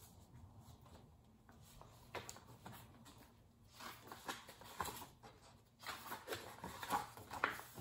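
Faint paper rustles and soft taps of a hardcover picture book being opened and its pages turned by hand, coming more often in the second half.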